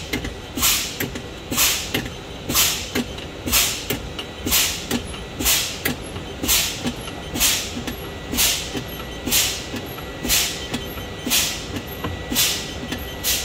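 Fire truck's air brakes hissing as air is exhausted about once a second, with a light click each time, as the service brake pedal is pumped with the engine off to bleed the tanks down toward the point where the spring parking brake sets. The low-air warning buzzer sounds steadily as a faint high tone underneath.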